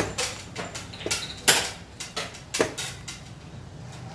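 Xiangqi pieces clacking on a wooden board, with the buttons of a digital chess clock being pressed: several sharp clicks, the loudest about a second and a half in.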